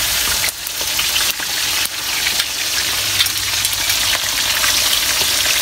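Milkfish deep-frying in hot oil in a wok: a steady, dense sizzle with fine crackling.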